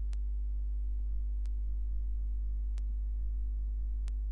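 Steady low electrical hum with a few steady overtones above it, broken by four soft clicks about one and a half seconds apart.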